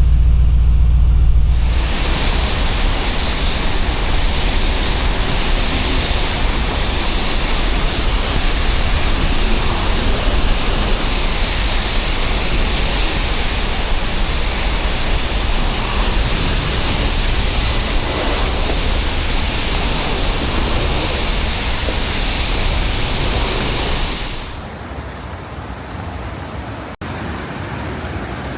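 Low rumble of the G63's twin-turbo V8 for the first second or so, then a steady loud hiss of rain and wet-road noise. The hiss drops to a quieter level near the end.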